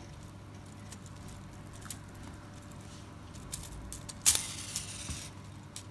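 Small plastic kit parts being handled as a gear is fitted onto a shaft: a few light clicks, then a short plastic rattle about four seconds in.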